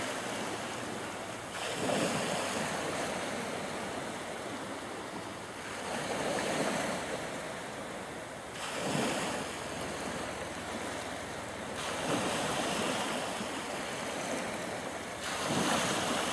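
Small waves breaking and washing onto a sandy shore, a fresh surge about every three seconds over a steady hiss of surf.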